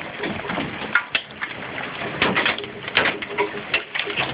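Golf-ball-sized hailstones hitting the house in an irregular clatter of sharp knocks, several of them a second.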